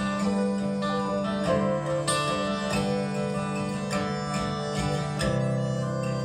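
Acoustic country band playing an instrumental break with no singing: picked banjo and strummed acoustic guitar over held accordion chords.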